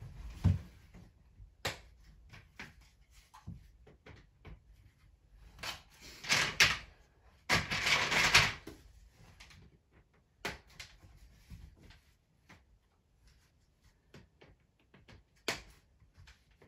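Plastic Playmobil train track pieces being handled and pushed together, with scattered clicks and knocks and two longer scraping, rustling spells about six and eight seconds in.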